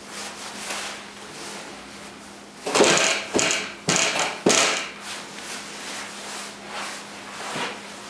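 A handsaw cutting through a 6x6 white pine timber: four loud, rasping strokes about half a second apart start about three seconds in, followed by lighter strokes. A steady low electrical hum runs underneath.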